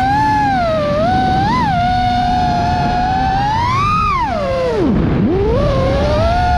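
FPV drone's electric motors whining, the pitch rising and falling with the throttle. About five seconds in the pitch drops sharply as the throttle is cut, then climbs back to a steady whine.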